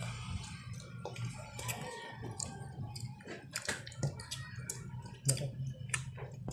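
Scattered light clicks and taps of dishes and utensils being handled during a meal, over a low steady hum.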